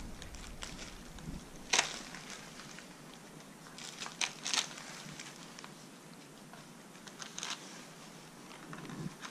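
Cord being pulled through the edge of a polar bear hide and drawn tight around a wooden stretching frame. A few short scratchy rustles and snaps: one about two seconds in, a quick cluster around four seconds, and a couple more later.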